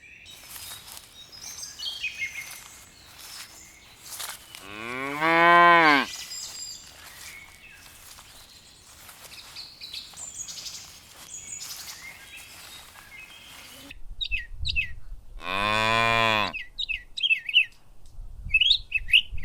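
A cow mooing twice: a long call that rises and then falls in pitch about five seconds in, the loudest sound, and a second long call near sixteen seconds. Small birds chirp throughout.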